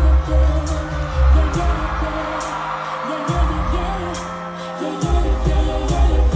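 Live pop music played loud through an arena sound system: female vocals over a heavy bass beat with steady hi-hats, with the bass dropping out briefly twice midway.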